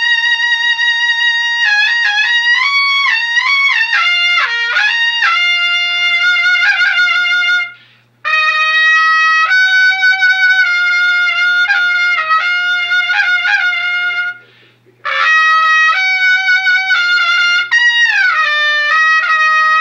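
A recorded melody playing from an old iPhone's speaker and projected through a trumpet bell used as a horn. It is a single melodic line of held notes with slides between them, breaking off briefly about eight seconds in and again about fifteen seconds in.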